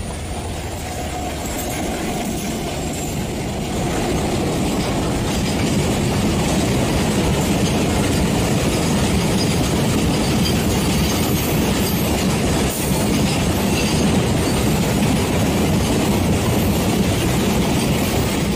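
Model freight train running on plastic track, its wagons' wheels clattering steadily over the rail joints; the clatter gets louder about four seconds in as the train comes closer.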